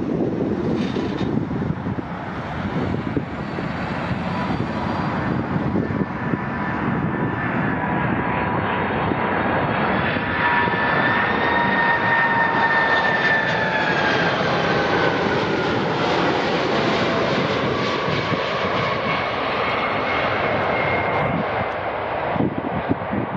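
Jet airliner passing close by: a steady rush of engine noise that grows to its loudest in the middle, with a whining engine tone that falls in pitch as the plane goes past.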